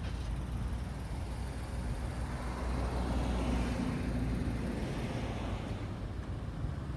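A car driving past on the road, its tyre and engine noise building to a peak about halfway through and then fading away. Steady low wind rumble on the microphone underneath.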